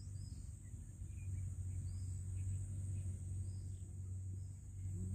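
Outdoor ambience: a steady high insect drone, with a few short bird chirps over a low steady rumble.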